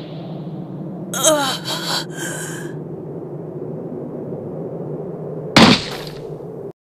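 Cartoon sound effects over a steady low rumble: a short noisy burst with quick falling whistles about a second in, then a loud crash as a body hits rocky ground, the loudest sound, about five and a half seconds in. The sound cuts off abruptly just before the end.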